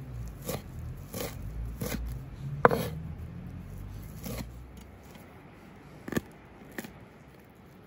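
Large kitchen knife chopping fresh green herbs on a wooden cutting board: irregular knocks of the blade against the board, about eight of them, the loudest about three seconds in.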